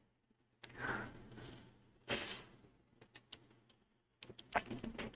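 Faint sounds of a person at a desk: two soft breaths, then a few light clicks and taps near the end.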